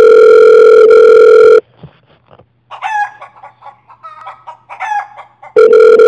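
Telephone ringback tone: a loud, steady, buzzy ringing tone that sounds for about two seconds, stops, and starts again near the end, in the usual two-seconds-on, four-off ringing pattern. In the gap between rings a chicken clucks and squawks in short calls that slide down in pitch.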